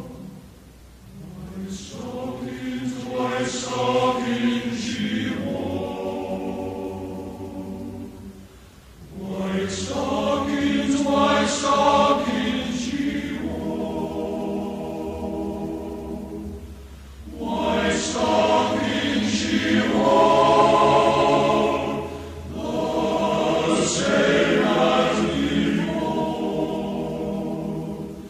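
A choir singing in long phrases with short breaks between them.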